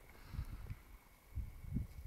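Wind buffeting the microphone: irregular low rumbling gusts, the strongest about one and a half seconds in.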